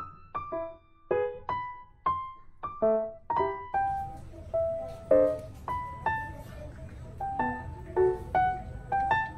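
Background piano music: a light, bouncy melody of single struck notes, two to three a second.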